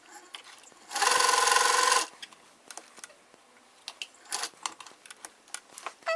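Vintage Singer sewing machine run for about a second, starting and stopping abruptly, followed by scattered light clicks. A short rising squeak comes near the end.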